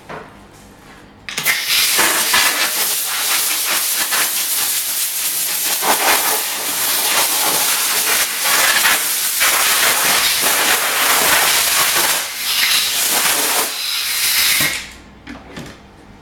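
Compressed-air blow gun blowing dust off a sanded plastic bumper repair: a loud, steady hiss that starts about a second in, rises and falls a little in strength, and stops near the end.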